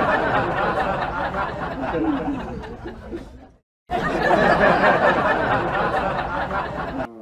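Laugh-track of a crowd laughing, played twice with a short silent break a little over halfway through.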